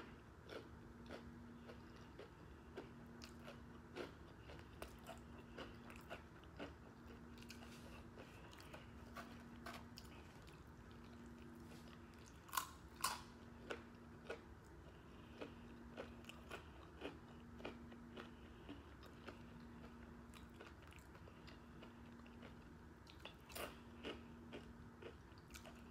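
Quiet chewing of a taco and Takis rolled tortilla chips, with small crunches scattered throughout and two sharper crunches about halfway through as a Taki is bitten.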